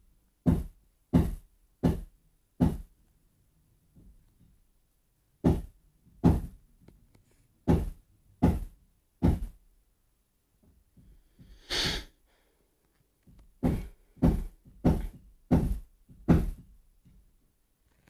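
Hammer blows in three runs of four, six and five strikes, a little over one a second, heard in a small room as hammering from next door. A short, higher, rasping sound comes between the second and third runs.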